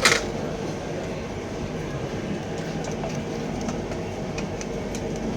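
A sharp clack of the printer's plastic parts being handled at the start, then a steady hum with a few faint small clicks while the disassembly goes on.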